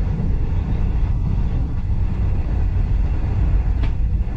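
Steam-hauled heritage passenger train running along the line, heard from inside the carriage: a steady low rumble of wheels and bogies on the rails, with a brief high squeal near the end.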